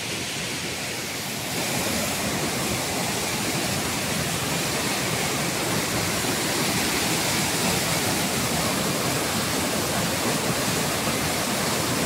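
Waterfall in heavy flood, a strong flow of muddy water pouring over rock ledges in a steady rush. It grows a little louder about a second and a half in.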